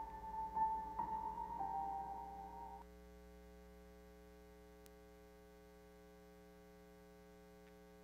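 Soft, sustained keyboard-like notes of the dance music that stop about three seconds in, leaving only a faint steady electrical hum.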